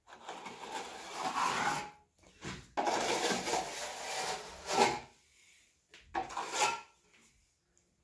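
Metal plastering trowel scraping across a plastered wall in several long, rasping strokes.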